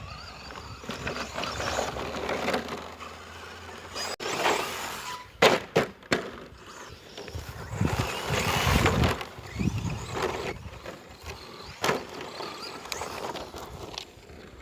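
Brushless ECX Torment 1/10 short-course RC truck driving over rough ground: bursts of motor and tyre noise that swell and fade, with a few sharp knocks about a third of the way in and again near the end.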